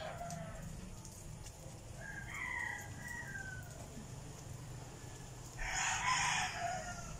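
Roosters crowing twice: a fainter crow falling in pitch about two seconds in, then a louder, harsher crow near the end.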